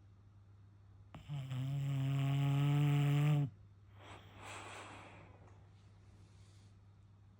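Bulldog snoring: one loud, steady-pitched snore lasting about two seconds, starting about a second in and cutting off sharply, then a softer, breathy breath.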